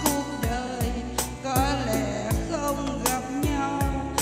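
A woman singing a Vietnamese song with vibrato into a microphone, over amplified musical accompaniment with a steady drum beat of about two and a half strokes a second.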